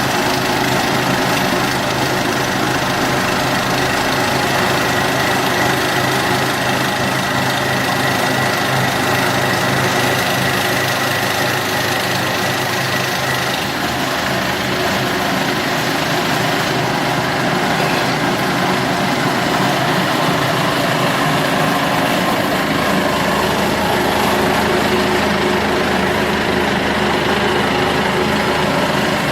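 Electric ornamental iron-working machine running steadily: a constant motor hum with a high whine that fades out about halfway through.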